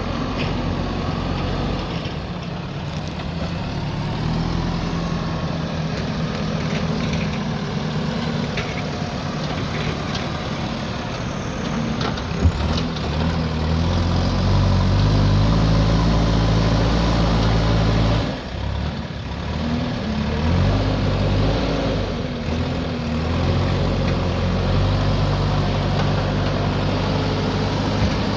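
JCB backhoe loader's diesel engine running while it digs, its revs rising and falling with the load; it is loudest in the middle and dips briefly a little past halfway. A single sharp knock comes about twelve seconds in.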